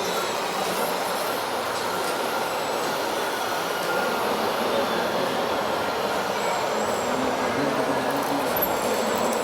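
Small electric motors and gearboxes of radio-controlled model trucks and tractors running, a steady mechanical whir with faint high whines that shift pitch now and then.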